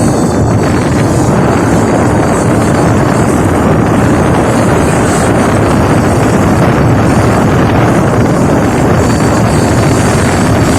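Motorboat under way: a steady, loud engine and hull noise with wind buffeting the microphone.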